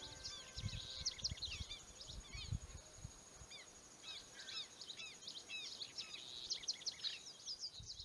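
A chorus of small birds chirping, many short quick calls overlapping, with soft low thumps underneath.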